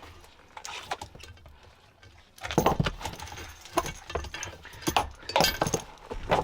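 Metal jangling and clinking of a dog's leash clip and collar hardware being handled and fastened: a few light clicks, then a busy run of sharp clinks and clatters from about two and a half seconds in.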